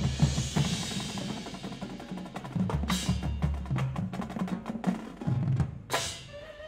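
Marching band percussion playing a busy rhythm on snare and bass drums over low held notes, with two loud crashes, about three seconds in and near the end.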